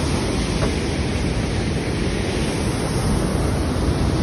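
Fast-flowing mountain river rushing over boulders below a footbridge, a steady roar of white water.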